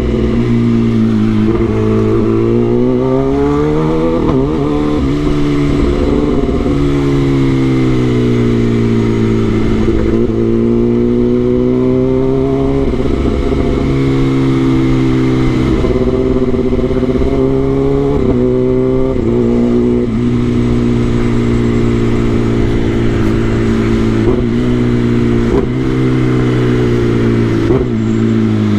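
Kawasaki ZX-10R inline-four engine running under way, its pitch rising and falling several times with the throttle. There are a few brief breaks where the rider changes gear.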